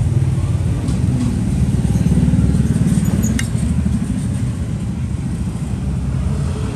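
Steady low rumble of motor-vehicle traffic, with a few sharp clicks about one second and about three seconds in.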